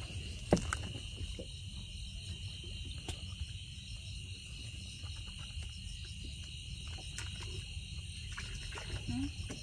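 Crickets trilling in one steady high chorus, over a low rumble, with a few faint knocks scattered through.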